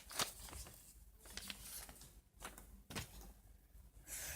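Faint rustles and taps of sheet paper being handled and folded.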